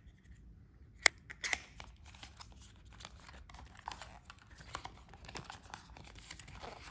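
Cardboard and paper packaging of an Apple Watch charging cable being handled and unwrapped: a sharp click about a second in, then a run of small rustling and crinkling sounds.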